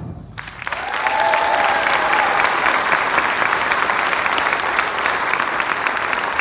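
Audience applause that swells up about half a second in and holds steady, with a brief cheer over it about a second in.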